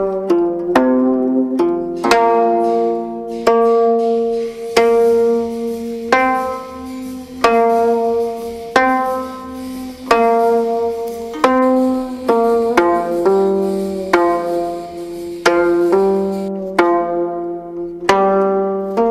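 Background music on a plucked string instrument: notes and chords plucked about once a second, each ringing out and fading.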